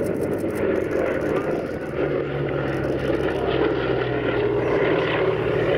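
A B-17 Flying Fortress's four Wright Cyclone radial piston engines droning steadily as the bomber flies past, a steady low engine tone coming through about two seconds in.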